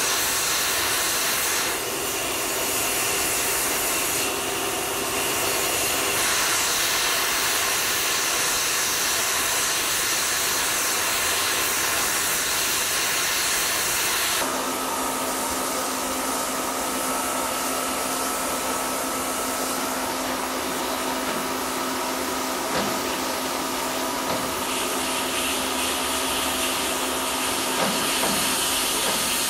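Steady hiss and running noise of a train ride behind the narrow-gauge steam locomotive ÖBB 298.52, with escaping steam prominent. About halfway through, the sound shifts and a low steady hum comes in.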